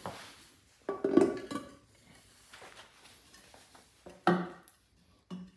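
Engine parts being set down on a hard garage floor: three short clatters of metal and plastic pieces knocking together, with a brief ring, about a second in, around four seconds and just before the end.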